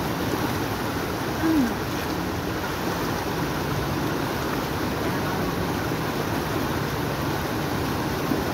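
Fast, muddy stream water rushing around the waders' legs, a steady even wash of noise. A brief falling sound stands out about a second and a half in.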